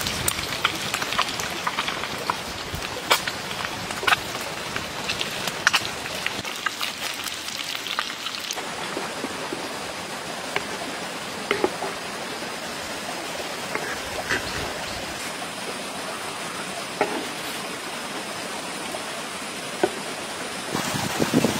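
Oil sizzling in a pan of frying bitter melon over a wood fire, with frequent sharp pops and crackles for about the first eight seconds. After that a steady hiss goes on with only an occasional click.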